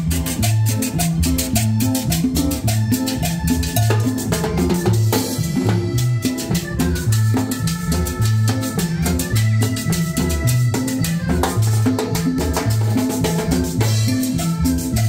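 Live Latin dance band playing an up-tempo groove: congas and a drum kit over a repeating electric bass line, with an electric guitar and sustained keyboard notes.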